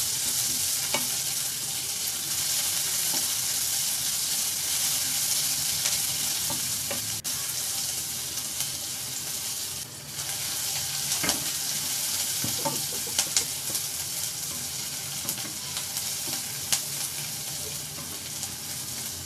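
Sliced onions sizzling steadily in hot oil in a kadai, stirred with a wooden spatula that scrapes and clicks against the pan now and then.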